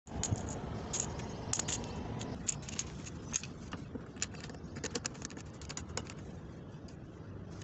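Irregular sharp clicks and light rattling from a hose fitting being handled and snapped onto the outlet of an electric pressure washer, with the machine not running, over steady background noise.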